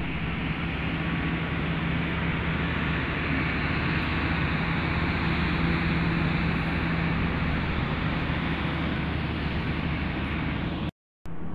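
A machine running steadily: a constant low hum under an even hiss. It drops out completely for a moment near the end.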